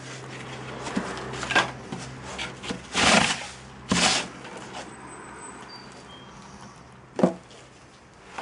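Wooden moulding boards being handled on a sand-strewn cloth: two rough scraping, sliding sounds about three and four seconds in, then a single sharp knock near the end as the wooden moulding flask is set down on the board.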